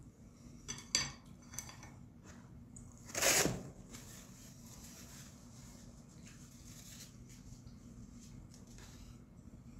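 Wooden chopsticks set down on a plate, a few light clicks about a second in, then a short loud rustle of a paper tissue pulled and crumpled as hands are wiped.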